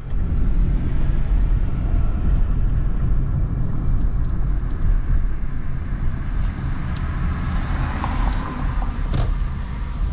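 A car driving at low speed, heard from inside the cabin: a steady low rumble of engine and tyres, with a faint click about nine seconds in.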